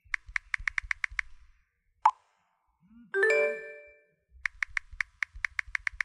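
WhatsApp sounds on a smartphone. A quick run of keyboard typing clicks, then a single pop of a message being sent about two seconds in. About a second later comes a short bright chime of several notes, and near the end the typing clicks start again.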